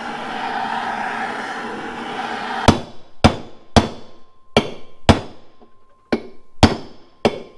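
Gas torch hissing steadily as it heats the engine case. About three seconds in, hammer blows on a steel socket begin, about eight sharp strikes roughly half a second apart, driving a bearing out of the heated case.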